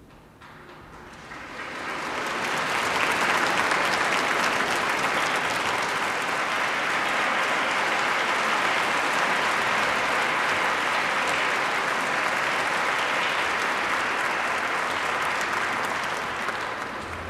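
Large audience applauding: the clapping swells over the first couple of seconds, holds steady, and tapers off near the end.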